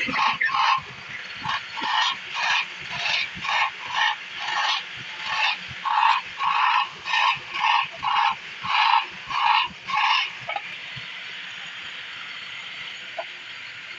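Drill press bit screeching into the wood in short, loud bursts about twice a second, one burst for each small hole drilled through the sides of a wooden box. The bursts stop about ten and a half seconds in, leaving a steady hiss.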